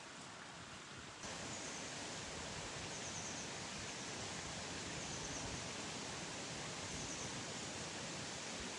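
Steady outdoor background noise, a hiss spread evenly from low to high that gets louder and brighter about a second in, with faint short high chirps about every two seconds.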